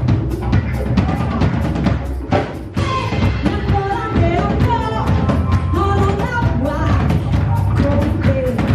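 Live band music, with a drum kit keeping a steady beat under a sung melody. The music thins briefly between about two and three seconds in.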